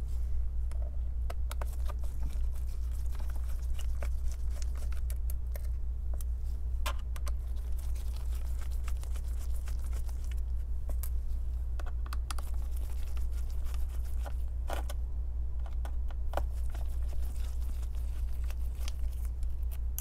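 Scattered light clicks and scrapes of a small Phillips screwdriver and gloved fingers working the tiny screws out of a laptop's metal back cover, over a steady low hum.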